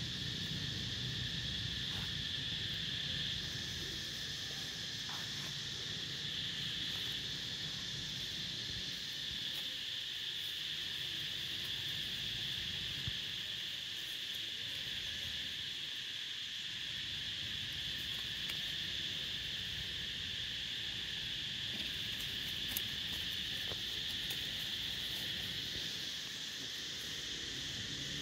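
Steady, high-pitched insect chorus over a low rumble.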